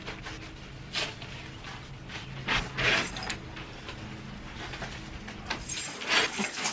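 Sliding glass patio door being slid open and then shut again, with several clicks and knocks from its handle, latch and frame.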